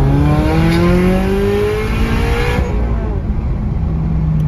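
Turbocharged 2.4-litre flat-four of a 2022 GR86/BRZ heard from inside the cabin, pulling under throttle with its pitch rising steadily and a rushing hiss over it. About two and a half seconds in the rising note and hiss fall away as the gauge drops back to vacuum, leaving a lower steady engine hum.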